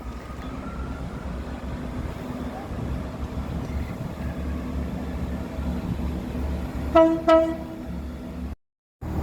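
A train running with a steady low rumble, then two short blasts on its horn about seven seconds in, close together on one pitch. The sound cuts off abruptly to silence just before the end.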